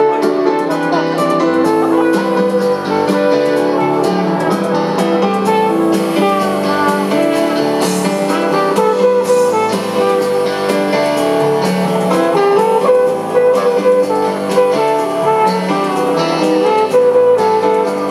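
Live band playing an instrumental passage: guitar over keyboard and drums.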